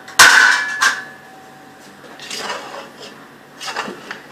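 Metal cookware clanking: a loud clang that rings on for most of a second just after the start, a second knock just before the one-second mark, then softer scraping and knocking of a utensil against the pot.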